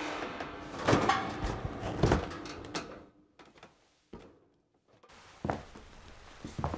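A run of loud knocks and thuds, like a door or cupboard banging, over the first few seconds, then near silence, then two fainter thumps near the end.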